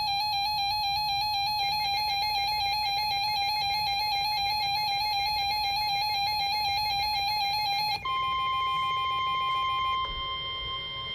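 Emergency Alert System attention signal: a harsh, steady dual-tone alarm holds for about eight seconds. It then switches to a single steady, slightly higher tone, the weather-radio warning alarm that comes before a spoken warning.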